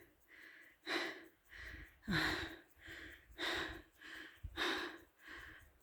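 A tired hiker breathing hard: about one breath a second, louder and softer breaths taking turns, from the exertion of walking downhill at high altitude.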